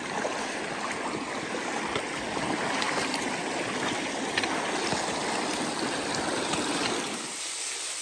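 Shallow creek water rushing steadily over rock ledges, with light splashes from hikers' boots and trekking poles as they wade through. About seven seconds in it drops to a thinner, quieter water hiss.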